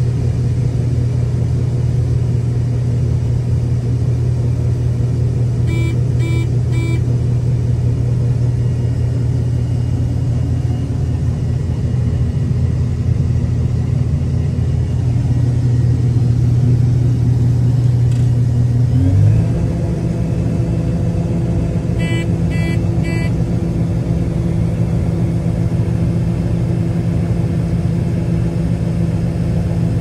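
Tractor engine droning steadily, heard from inside the cab, stepping up to a higher engine speed about nineteen seconds in. Three quick electronic beeps sound about six seconds in and four more about twenty-two seconds in.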